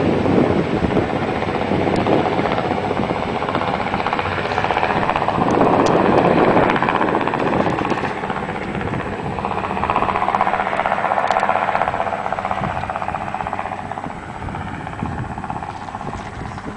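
Sikorsky S-61 twin-turbine helicopter in flight, its rotor beating steadily, the sound gradually fading in the last few seconds as it flies away.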